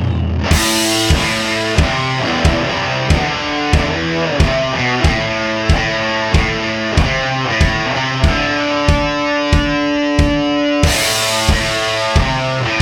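Rock music with guitar over a steady drum beat, about one and a half beats a second; it kicks in with a cymbal crash about half a second in, and another crash comes near the end.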